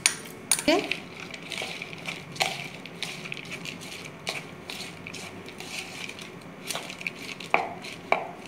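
A steel spoon clinks and scrapes against a small glass bowl as grated cheese is emptied out, then a hand mixes chopped boiled macaroni in a plastic bowl. The mixing gives soft, irregular clicks and knocks, a few of which ring briefly.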